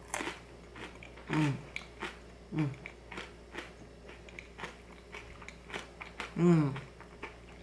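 Crackers with a creamy avocado topping being bitten and chewed close to the microphone: a string of small crisp crunches. Three short hummed sounds with falling pitch break in, the last near the end and the loudest.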